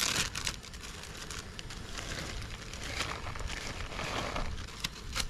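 Plastic zip-top freezer bags crinkling and rustling as shredded cheese is poured from one bag into the other, a run of small crackles with a sharper rustle at the start and another near the end.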